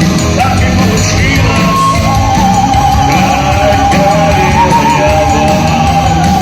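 Live rock band playing a heavy, loud song with singing; a long wavering held note runs through the middle.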